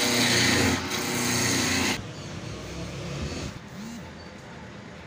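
Electric wood lathe running with a steady motor hum and a hiss. It cuts off abruptly about two seconds in, leaving quieter, fainter workshop noise.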